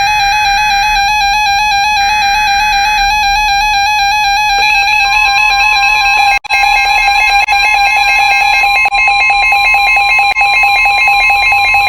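NOAA Weather Radio emergency alert tones heralding a warning. The header's warbling digital data bursts sound in about one-second blocks for the first few seconds, then the steady 1050 Hz warning alarm tone starts about four and a half seconds in. A harsh electronic alarm beep sounds over them throughout.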